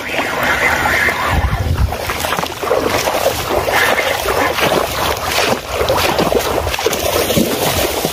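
Wind buffeting the microphone over open water: a steady rushing noise, with a deeper gust about a second and a half in.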